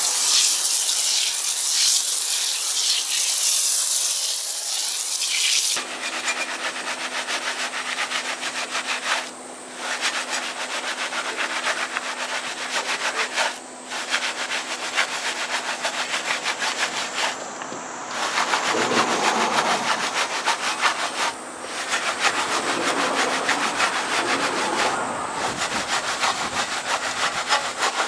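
Water spraying from a pressure washer onto a car wheel for about six seconds. It then cuts to a stiff brush scrubbing the wheel and tyre in rapid scratchy strokes, with short breaks every few seconds and a faint steady hum underneath.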